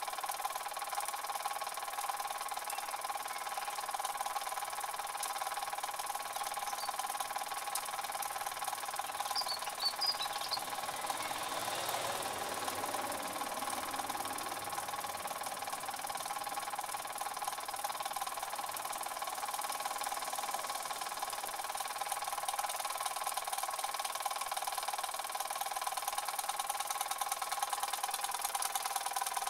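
Two toy live-steam stationary engines with oscillating cylinders running steadily, a fast, even mechanical beat with a steady tone over it.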